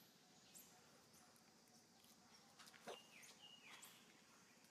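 Near silence: faint outdoor ambience with scattered small clicks and rustles, and about three seconds in a sharper tick followed by a couple of short falling chirps.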